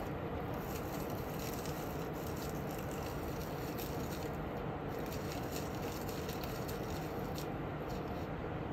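A cat gnawing on the plastic shaft of a pink wand toy: scattered soft clicks and crunches over a steady background hiss.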